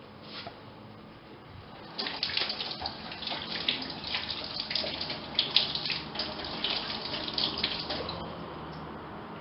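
Kitchen tap running into a stainless steel sink while hands are rinsed under the stream, with uneven splashing. It starts about two seconds in and eases off near the end.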